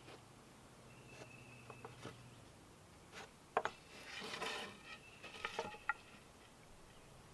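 Light knocks and clatter of a steel handsaw being set down and shifted against a wooden saw horse and its pegs, the sharpest knock about three and a half seconds in. The blade rings faintly after some of the knocks.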